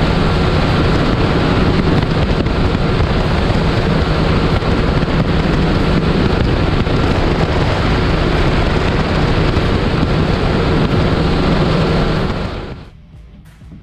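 Bass boat outboard motor running at speed, with heavy wind noise on the microphone; the noise drops off sharply near the end.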